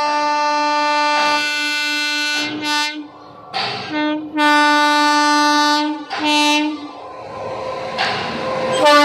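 WAG-9HC electric locomotive's horn sounding a string of blasts as it approaches: a long one, short toots and another long blast. After that comes the rising rumble of the train drawing near, and the horn starts again near the end.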